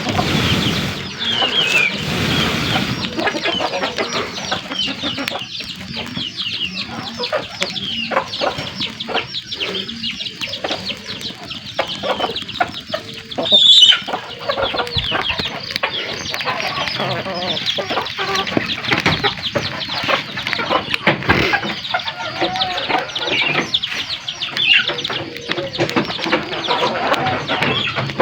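Wood fire crackling and popping in a fireplace: a dense, continuous run of small sharp crackles, with one loud pop about 14 seconds in.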